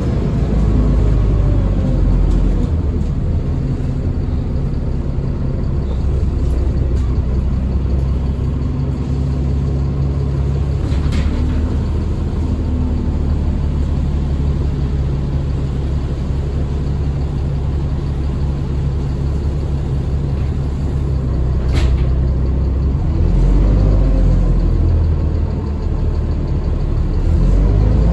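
ADL Enviro 400 Trident double-decker bus engine running steadily under way. Near the end its pitch rises and falls a couple of times as it pulls through the gears. Two sharp clicks are heard along the way.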